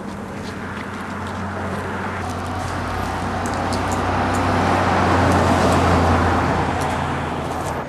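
A motor vehicle passing by, its engine and road noise growing louder to a peak about five to six seconds in, then easing off.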